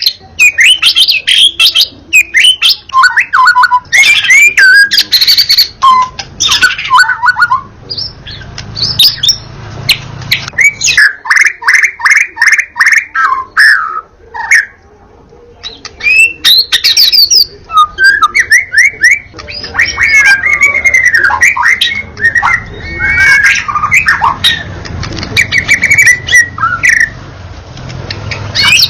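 White-rumped shama in full, persistent song: a varied stream of loud whistles, fast repeated notes and harsher phrases, with a brief pause about halfway through.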